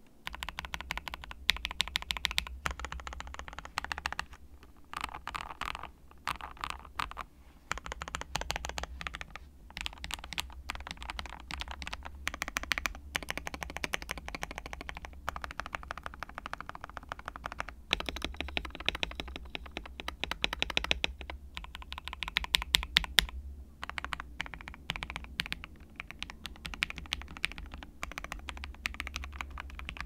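Continuous fast typing on a mechanical keyboard: lubed and filmed Gateron Ink Black V2 linear switches in a KBD67 Lite R3 polycarbonate case with a PC plate and PBT keycaps. A dense run of keystroke clacks, broken by a few short pauses.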